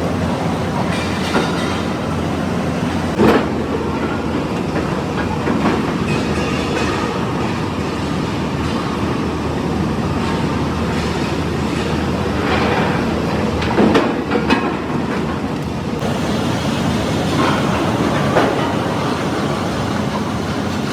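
Steel mill machinery running with a loud, steady din, with several sharp metallic clanks scattered through it.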